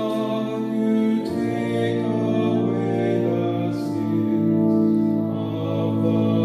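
Slow sacred music of long, sustained chords with no beat, the chord changing every couple of seconds.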